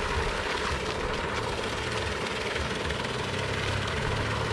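Paddlewheel pond aerators running: a steady motor drone mixed with the wash of churned water, with a low hum that grows a little stronger near the end.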